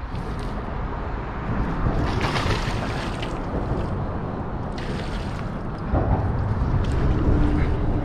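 Steady rushing noise, mostly wind buffeting the microphone, while a hooked bowfin swirls and splashes at the water's surface.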